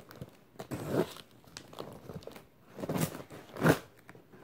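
Packaging being pulled open by hand: irregular crinkling and tearing of wrapping and tape, in uneven bursts about a second in and again around three seconds in.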